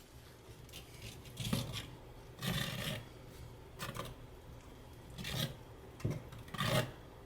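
A trowel scraping and spreading tile adhesive, about six separate rasping strokes with short pauses between.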